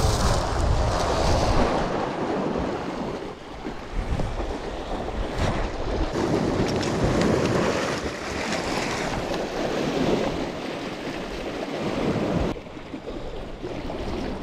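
Sea waves washing against a rocky shore in rising and falling surges, with wind buffeting the microphone.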